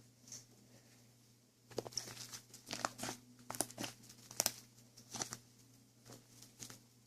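Crinkling and rustling, like something being crumpled or torn, in short irregular bursts starting about two seconds in and stopping near the end.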